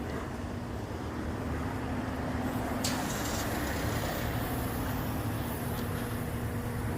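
Vehicle engine running with a steady hum, and a single sharp click about three seconds in.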